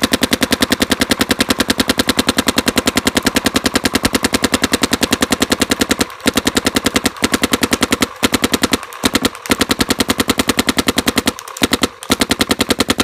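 Planet Eclipse Dark Geo 2 electronic paintball marker firing a long, rapid string of shots on high-pressure air as it empties a pod of paint. The stream breaks off briefly a few times after about six seconds, with a longer pause near the end.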